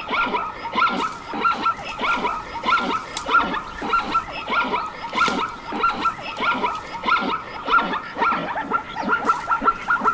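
An animal calling over and over in short, rapid yelping calls, several a second and overlapping, without a break.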